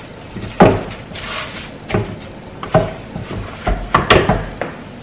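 Wooden tortilla press being worked to flatten masa: its hinged wooden lid and lever handle knock against the wooden base in about five sharp clacks, the first the loudest.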